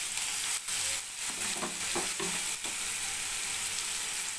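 Onion paste sizzling in hot mustard oil in a nonstick wok, with a spatula scraping and clicking against the pan a few times as it is stirred in.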